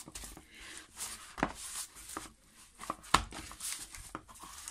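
Hands kneading soft, buttery yeast dough in a plastic tub: irregular squelches and pats, with a few sharper slaps of the dough against the tub.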